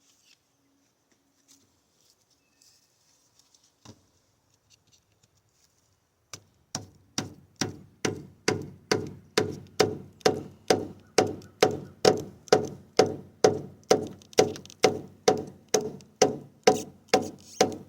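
A wooden baton strikes the spine of an out-the-front (OTF) stiletto knife over and over, driving the blade through a piece of wood (batoning). After a few faint taps, the strikes start about six seconds in and keep an even pace of about two knocks a second, each with a short ring.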